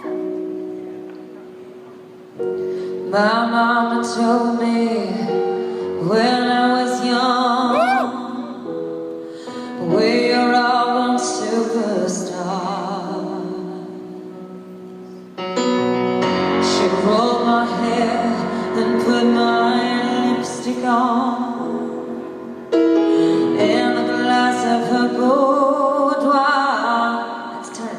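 A woman singing a slow song to her own piano accompaniment, held sung phrases with pauses between them over sustained piano chords. The voice comes in about two and a half seconds in.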